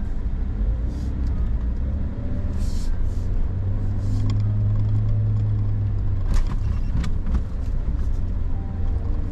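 Suzuki Jimny's 1.5-litre four-cylinder engine pulling at low speed in low-range four-wheel drive, heard from inside the cabin as a steady low drone that grows stronger about three and a half seconds in. A few sharp knocks come through about six to seven seconds in as the vehicle crosses ruts.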